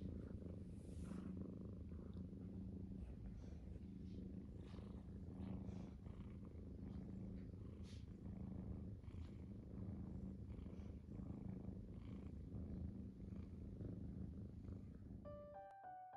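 Domestic cat purring steadily close up while being stroked. Piano music comes in just before the end.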